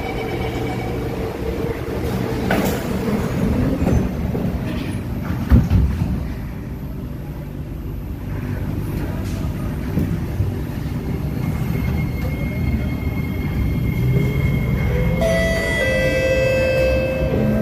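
Inside an SMRT C751B metro car: the steady low rumble of the train, with a single knock about five and a half seconds in. From about fifteen seconds the traction motors start a rising electric whine as the train gathers speed.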